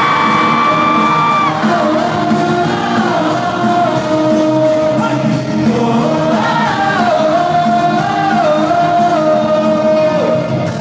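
Live pop-rock band music, a held, gliding melody line over the full band, with crowd shouts mixed in.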